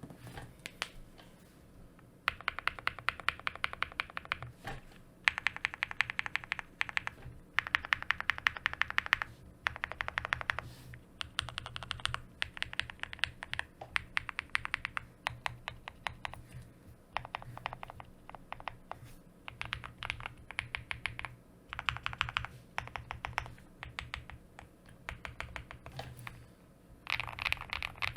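Owlab Spring custom mechanical keyboard being typed on in runs of rapid keystrokes with short pauses between them. The board is fully foamed, with an FR4 plate, Tecsee Singularity switches, Durock V2 stabilizers and white-on-black keycaps.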